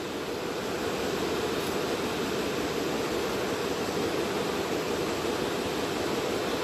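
A steady, even hiss of background noise with a low hum running through it, and no shot.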